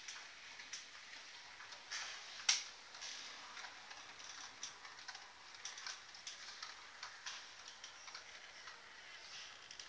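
Faint, irregular clicks and ticks over a soft hiss, with one sharper click about two and a half seconds in: a model railway train running on the layout, its wheels clicking over the rail joints.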